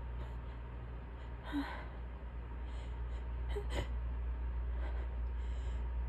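A person's short gasping intakes of breath as a sneeze builds up: one about a second and a half in, and another, with a small click, at about three and a half seconds, over a steady low hum.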